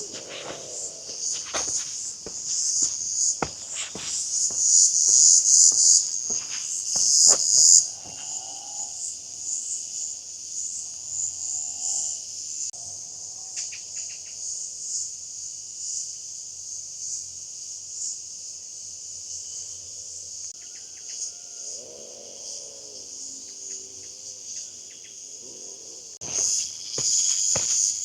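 Steady high-pitched chirring of insects in a dense chorus, with the clicks of footsteps on the ground through the first several seconds and again near the end.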